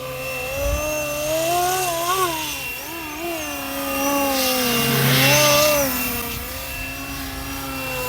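FlyWing MH-60T Jayhawk electric RC helicopter flying, its motor and rotor whine wavering up and down in pitch as the throttle and manoeuvres change. It swells louder with a rush of air about two-thirds of the way through.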